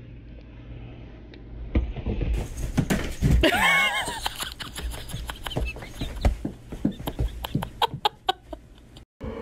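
A cat's short chirping, wavering call about halfway through, among scattered thumps and rustles of bedsheets.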